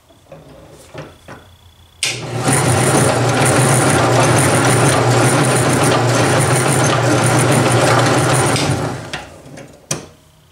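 Small bench drill press motor switched on, running steadily for about six seconds while it spins the Vortex Ball Roller, which rolls a pure lead round ball between its plates. It then winds down and stops, and a sharp click follows near the end.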